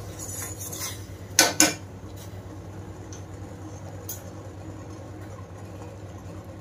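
A metal spoon stirs and clinks against a stainless-steel saucepan of boiling sugar syrup. About a second and a half in come two sharp knocks close together, the spoon striking the pan. After that there is a low steady hum.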